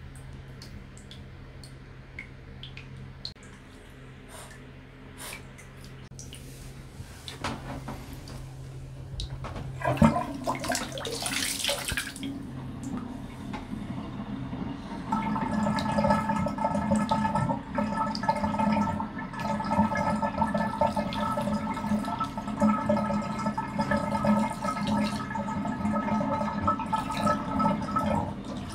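Water rushing and gurgling down a bathtub drain. It starts suddenly about ten seconds in, after a low hum and a few faint clicks. From about fifteen seconds on it is louder and settles into a steady gurgle with several steady tones running through it.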